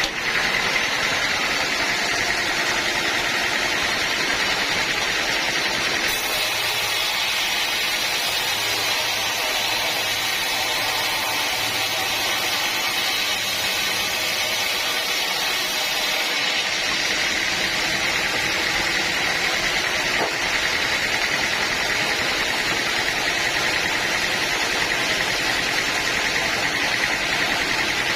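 Sawmill machinery running steadily, a constant mechanical drone with a high whine, as a teak log is milled. About six seconds in, an added high hiss comes in, and it drops away about ten seconds later.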